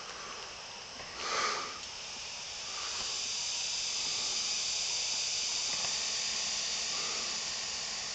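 Insects droning in a steady high-pitched shrill, swelling louder about three seconds in. A short rush of noise about a second in.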